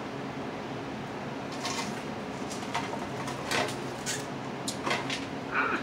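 Scattered short clicks and rustles as hot fries are picked out of an air-fryer basket and bitten, about six in all, over a steady low hum.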